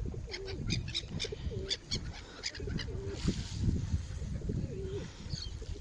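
A pigeon cooing several times, a short wavering call about every second or so. Quick high bird chirps come over the first half, with a low rumble underneath.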